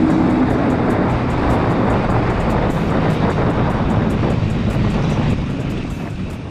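Honda RS150 motorcycle's single-cylinder engine running at speed, mixed with heavy wind rush on the action camera's microphone, fading down near the end.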